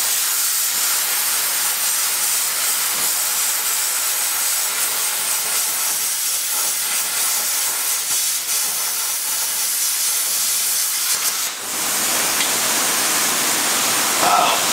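Plasma cutter cutting a slot in a steel frame cross member: a steady, high-pitched hiss of the arc and its air jet. Nearly twelve seconds in the cut stops with a brief dip, and a fuller rush of air carries on.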